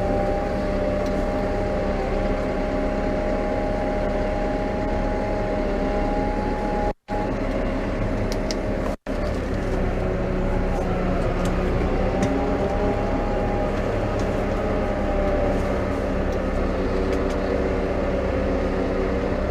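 New Holland T5.120 tractor's four-cylinder diesel engine running steadily, heard from the driver's seat while manoeuvring at the end of a ploughing row. Several steady tones sit over the drone and shift slightly in pitch about midway. The sound cuts out briefly twice.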